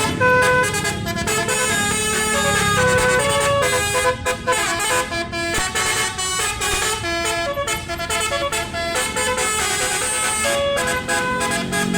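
A bus's telolet (basuri) multi-tone horn playing a tune of short notes that step up and down in pitch, with brief breaks between phrases.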